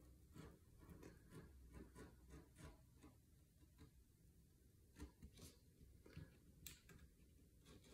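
Faint, irregular scratching and light ticking of a pointed hand tool drawn along masking tape on paper, a little sharper twice in the second half.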